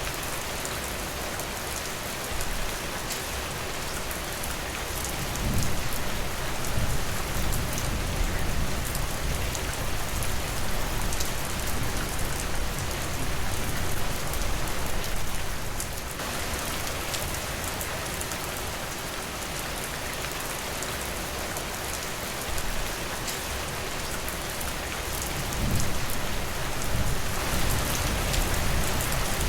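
Steady rain falling, a dense hiss of drops, with two deeper, louder swells: one about five seconds in and one near the end.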